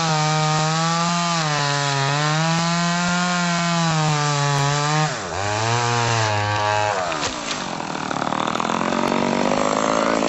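Two-stroke chainsaw running at high revs while cutting up a felled pine, its pitch wavering. About five seconds in it dips and runs at a lower pitch for a second or so. In the last few seconds it gives way to a rougher, noisier sound.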